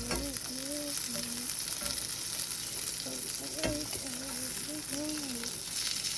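Sausage sizzling as it fries in a non-stick pan, a steady hiss with a couple of sharp clicks, one near the start and one past the middle.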